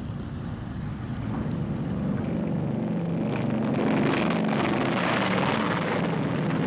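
Boeing B-29's four radial piston engines at takeoff power, a rumbling drone that swells over the first few seconds and then holds steady.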